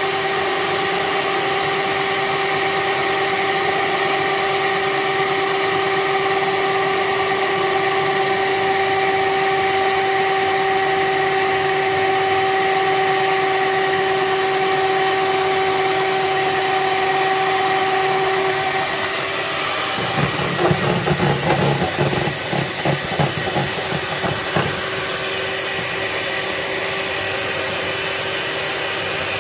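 Electric hand mixer on a stand beating eggs and oil into cake batter, its motor running with a steady whine. About 20 seconds in there is a run of irregular rattling and knocking as the mixer head is tilted up out of the bowl, then the motor keeps running with the beaters lifted out.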